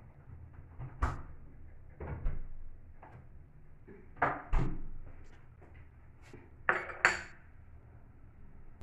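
Kitchen dishes and utensils being handled: a series of separate short knocks and clatters at uneven intervals, the loudest pair about seven seconds in.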